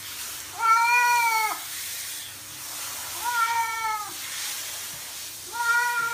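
A cat meowing loudly three times while it is being washed under a handheld shower, each meow just under a second long with a slight rise and fall in pitch.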